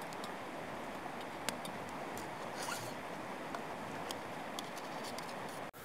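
Steady sizzling and crackling from food cooking over campfire coals, with a few sharp clicks as a spoon strikes the metal pot and cup.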